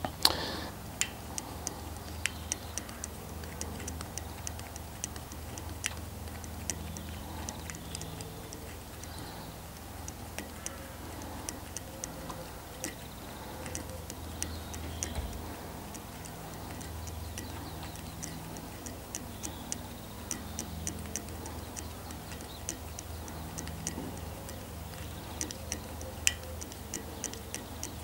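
A hand-held bowstring serving tool being turned around the string, its plastic body and spool of serving thread giving light irregular clicks and ticks, a few a second, over a faint steady low hum.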